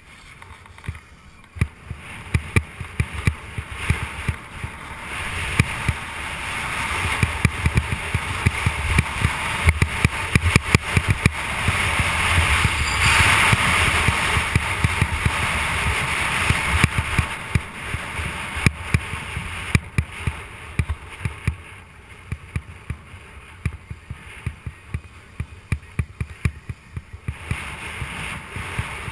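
Snowboard sliding and carving down soft, slushy spring snow: a continuous scraping hiss of the board on the snow that grows louder through the middle of the run and eases off near the end, with many sharp little knocks and clicks throughout.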